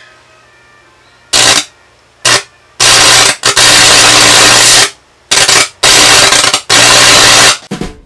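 High-voltage arc from a Samsung microwave oven transformer's secondary, about 2,500 volts, burning into raw beef. A faint mains hum, then from about a second and a half in, about seven loud, harsh bursts of arcing, each from a fraction of a second to over a second long.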